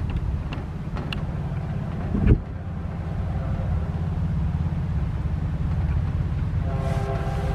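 Diesel freight locomotive running past with a steady low engine rumble, broken by a brief loud thump about two seconds in. Near the end its multi-chime air horn starts sounding a steady chord.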